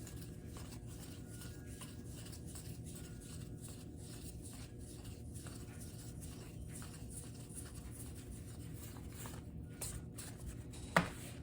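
Baseball cards being handled and flipped through: faint papery slides and soft ticks over a low steady hum, with one sharper click near the end.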